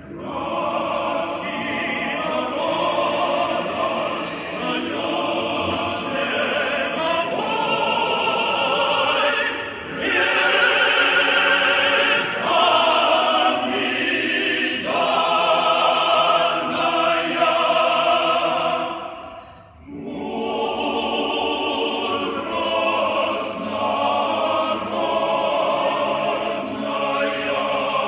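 Small unaccompanied male choir singing in several parts. There is a short break between phrases about two-thirds of the way through.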